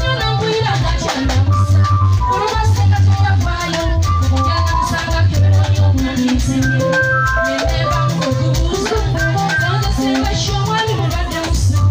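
Live band music played through a PA system: electric guitar and keyboard over a steady drum and bass beat.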